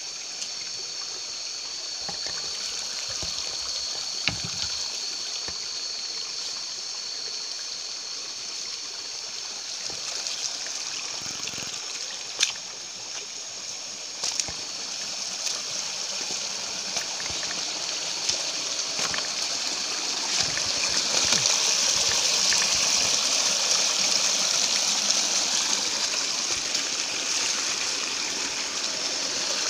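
Shallow rocky stream water trickling and splashing around wading feet, growing louder about two-thirds of the way through, with a few sharp knocks along the way.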